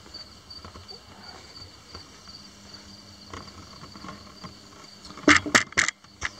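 A steady, faintly pulsing high trill of insects in the background. About five seconds in comes a quick run of four sharp knocks, then one more near the end.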